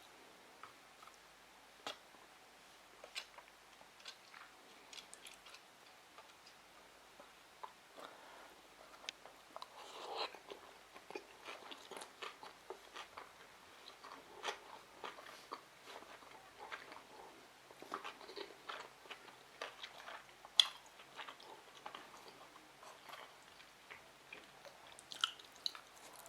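Close-miked chewing of sushi rolls: soft wet mouth sounds and small crunches and smacks, scattered irregularly and thicker in the second half, with one louder click a little after the middle.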